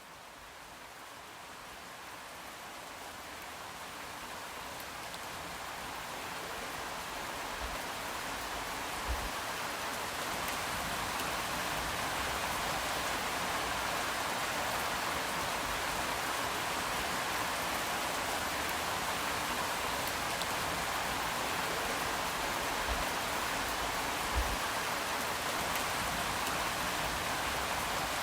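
Steady rain falling, fading in over the first ten seconds or so and then holding even, with a couple of soft low knocks from drops along the way.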